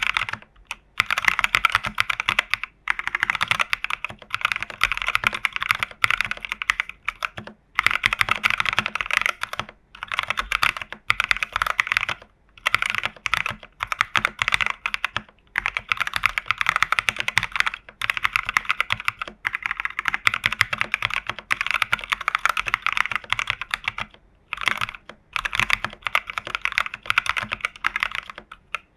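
Mechanical keyboard typing on NK Cream linear switches in a plateless TU40 plastic-case build with case foam, PCB foam and a tape mod: dense runs of soft, even keystroke clacks in spells of a few seconds, broken by short pauses.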